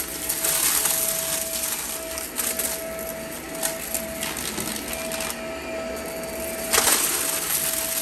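Shark upright vacuum cleaner running on carpet: a steady motor whine under a rushing suction noise, with a few brief clicks as small debris is sucked up, and a louder surge near the end.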